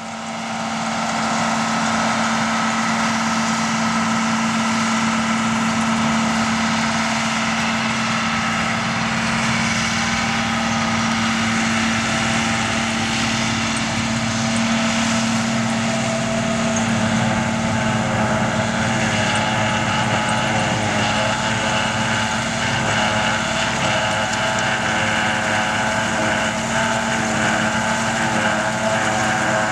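Diesel farm machinery at a silage harvest running steadily: a constant low hum with several higher whining tones over it, the higher tones growing stronger from about halfway through.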